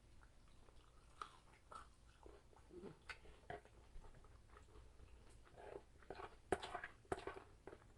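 Quiet eating sounds: soft chewing with scattered small clicks, a little louder about six to seven seconds in.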